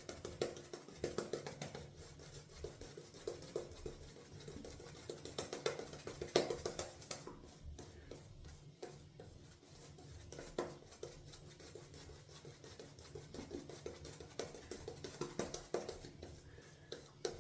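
Hybrid-knot shaving brush scrubbing soap paste on a face, the bristles making quick repeated scratchy strokes with a few short pauses. The lather is still thick, cakey and dry, with little water worked in.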